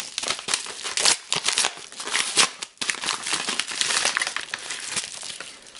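A padded jiffy-bag mailer being torn open and handled: paper crinkling and tearing in many quick, irregular crackles, with a short pause about two and a half seconds in.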